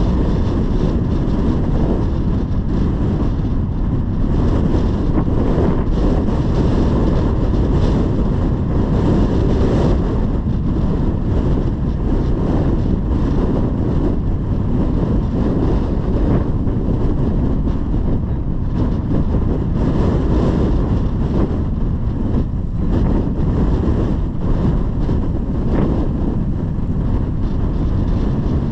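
Wind buffeting the microphone: a steady, loud, low rumble that flutters constantly.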